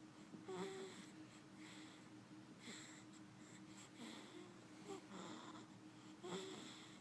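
A two-week-old baby snoring faintly, one short soft breath about once a second.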